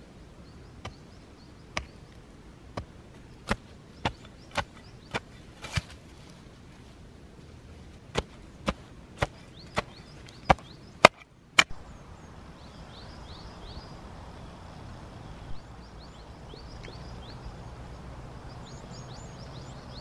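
Short-handled hatchet chopping into grassy turf and soil, about fifteen sharp strikes in two runs, cutting out a block of sod. Birds chirp in the background over the last several seconds.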